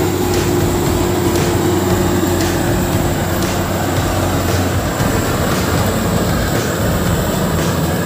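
Crawler combine harvester (FMWorld Bimo X) running steadily while it cuts and threshes rice: a continuous engine and machinery drone. A higher steady whine fades out about halfway through.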